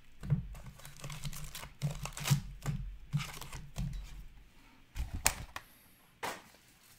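Wrapped hockey card packs crinkling and clacking against each other as they are pulled by the handful from a cardboard hobby box and stacked on a table: a quick run of clicks and rustles for about four seconds, then a few sharp single taps.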